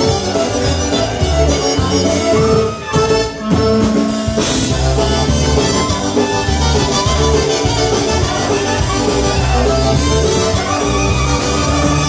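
Live polka band playing: accordions, electric bass and drum kit, with a trumpet carrying the melody. The band drops out for a brief break about three seconds in, then carries on.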